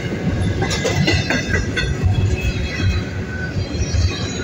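Double-stack intermodal container cars rolling past, a steady low rumble of steel wheels on rail. A cluster of sharp clicks comes about a second in.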